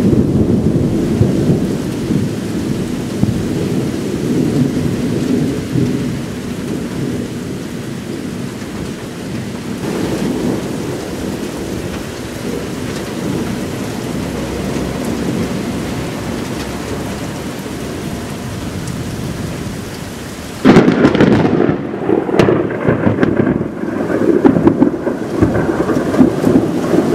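Thunder rumbling and slowly dying away over steady rain, then about three-quarters of the way through a sudden loud thunderclap breaks in and rolls on with repeated sharp peaks.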